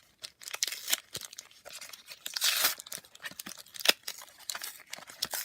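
Plastic blister packaging and its card backing being torn and pried open by hand: irregular tearing, crinkling and rustling with sharp plastic cracks, the packaging being difficult to open.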